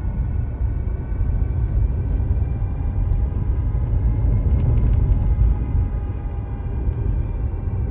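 Mazda CX-8 on the move: a steady low road rumble with a steady whine of several high tones over it, the abnormal noise that has started while driving. A few faint ticks about halfway through.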